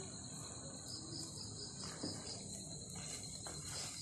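Crickets chirping in a steady high drone, with a few soft scrapes in the second half from a spoon turning cooked biryani rice in a metal pot.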